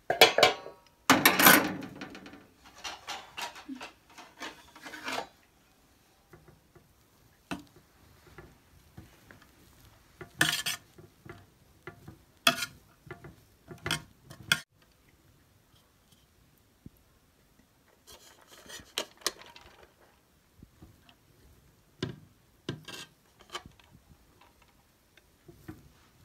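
A perforated metal skimmer scraping and knocking against the sides of an aluminium pot while stirring and fluffing steamed rice. It comes in scattered strokes and clatters with pauses between them, the loudest clatter in the first two seconds.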